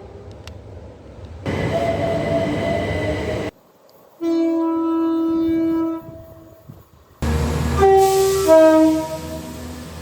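British train horns in a run of short clips cut hard together: a train running by, then one steady horn blast of about two seconds, then a passing train sounding its two-tone horn, a high note followed by a lower one.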